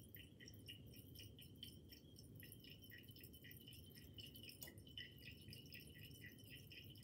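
Near silence; faint quick ticks, about three or four a second, of sodium hydroxide solution dripping from an open burette tap into a glass conical flask.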